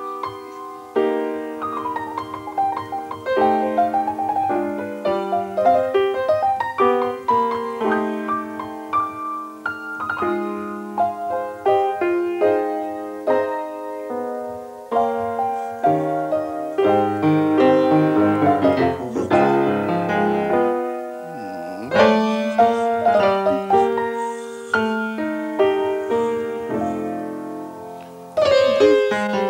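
Solo jazz piano played live: chords with quick runs of notes, and a loud chord struck just after a brief hush near the end.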